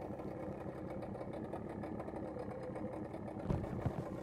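A steady engine hum with faint steady tones, broken by a couple of light knocks about three and a half seconds in.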